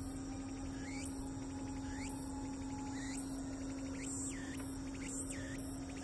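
Meimuna opalifera (tsukutsukuboshi) cicada singing: a repeated sweeping phrase about once a second, the sweeps turning from rising to dipping shapes about four seconds in. A steady low hum runs underneath.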